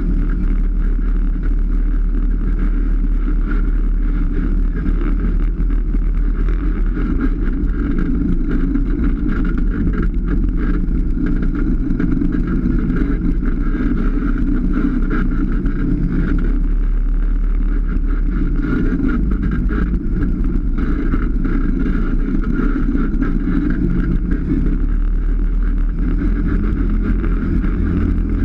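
Polaris RZR 570 side-by-side's single-cylinder engine running steadily while driving along a dirt trail, a continuous low drone whose pitch shifts a little now and then.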